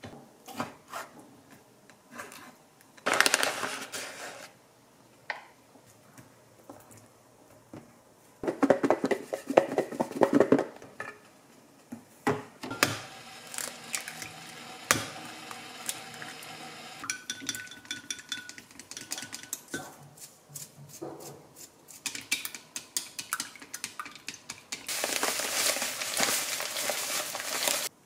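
Kitchen prep clatter: a chef's knife knocking on a wooden cutting board as fish fillets are cut, an egg cracked into a glass bowl, and chopsticks clinking and scraping in the glass bowl as the egg is beaten and fish pieces are dipped. The knocks and clinks come unevenly, with a few louder, busier stretches of scraping and stirring.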